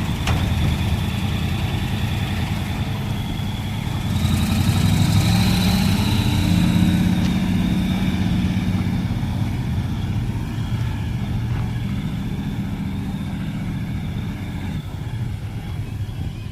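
Motor vehicle engines running steadily with road traffic. A heavier engine grows louder about four seconds in and fades over the next few seconds, like a truck passing close.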